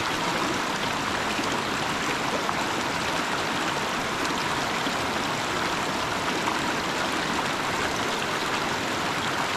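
Shallow, stony river running over rocks: a steady, even rush of flowing water.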